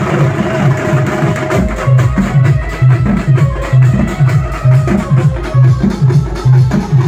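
Maharashtrian banjo party band playing loud dance music: a heavy drum beat about twice a second under a lilting melody line.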